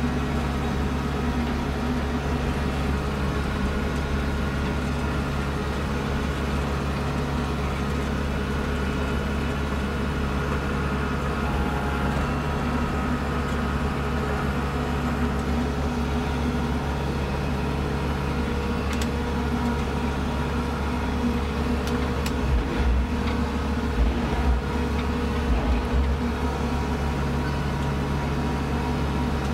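Kubota Grand L4760 compact tractor's diesel engine working steadily under load, driving its front snowblower as it throws snow, heard from inside the cab. A few short low thumps come about three-quarters of the way through.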